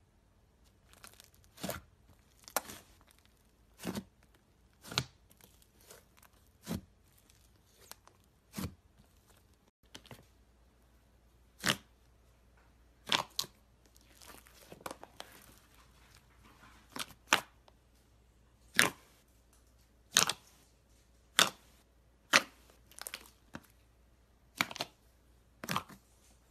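A hand squeezing and poking thick slime, with sharp pops and crackles, about one every second or two, sometimes two in quick succession, as the slime is pressed and pulled.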